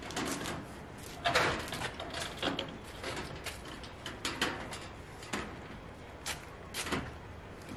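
Half a dozen sharp knocks and clatters at uneven intervals as a door and a panel are handled and fitted in a door frame.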